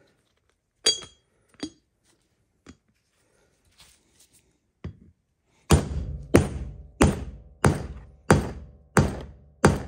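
Hammer blows driving a new bearing race down into a 1977 Corvette front wheel hub, the race not yet fully seated. A few light taps come first, then from about six seconds in a steady run of heavy, ringing strikes, about one and a half a second.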